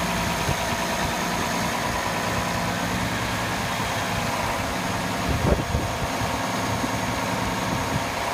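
International Harvester 1086 tractor's six-cylinder diesel engine idling steadily, with one brief thump about five and a half seconds in.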